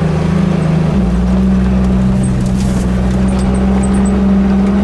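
1989 Jeep Wrangler YJ's engine running steadily under load on a steep off-road trail climb, its pitch stepping up slightly about a second in.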